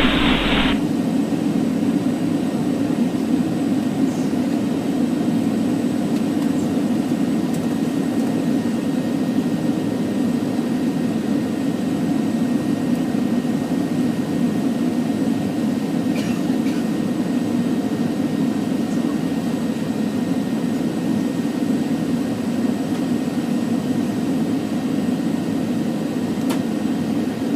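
Steady cabin noise inside a Boeing 737 airliner: the low, even rumble of the jet engines and airflow heard from a window seat in flight on approach.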